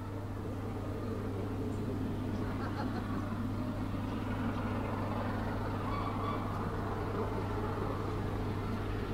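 A steady low engine hum with a fixed pitch, growing slightly louder over the first seconds.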